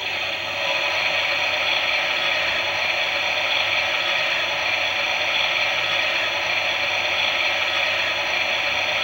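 Small electric motor and gear train of a Klein Miele toy washing machine running steadily, a constant high-pitched whir.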